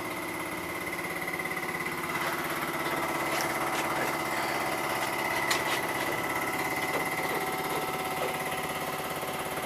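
Steady mechanical hum of a machine running in a car repair workshop, with a constant high whine, and a few light metallic clicks of hand tools at work between about two and six seconds in.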